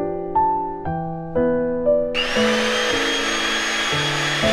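Electric hand mixer switched on about two seconds in, its motor running with a steady high whine as the beaters whip a frothy mixture in a stainless steel bowl. Piano background music plays throughout.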